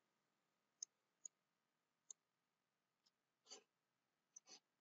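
Near silence: room tone with a few faint, short clicks from a computer mouse as a document is scrolled.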